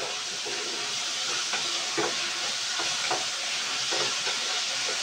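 A sauté sizzling steadily in a nonstick frying pan as it is stirred with a wooden spatula, which scrapes and knocks against the pan every second or so; oyster sauce has just gone into the mix.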